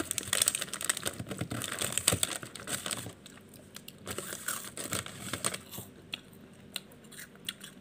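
Snack wrapper crinkling and rustling, dense for about the first three seconds, then only a few scattered crackles.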